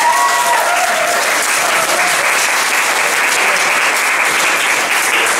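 Audience applauding steadily, with a voice calling out over the clapping in the first two seconds.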